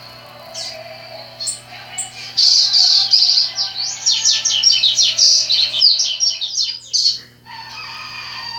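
Songbirds singing: a few short high chirps, then from about two seconds in one bird gives a loud, fast run of high sweeping notes lasting about five seconds. After a brief pause near the end, a lower-pitched song starts.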